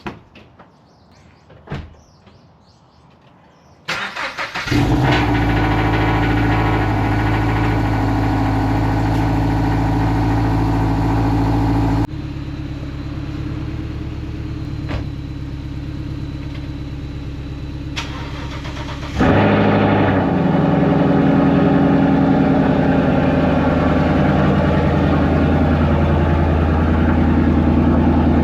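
A car engine starts about four seconds in, catching after a brief stutter, then runs steadily. Its sound drops abruptly about halfway through and comes back louder near the end.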